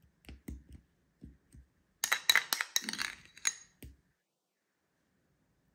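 Metal spoon clinking and scraping against a glass jar while spreading a thick yogurt topping: a few soft taps, then a quick run of sharp clinks about two seconds in that stop about four seconds in.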